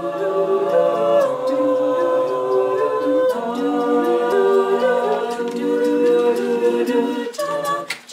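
A cappella vocal group singing sustained chords, the chords shifting about a second in, a little past three seconds and again near the end.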